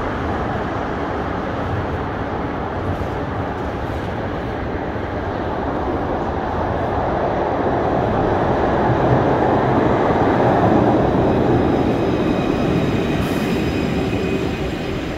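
Alstom Citadis tram running through the station. Its rumble swells to a peak a little past the middle and then eases off, with faint high tones near the end.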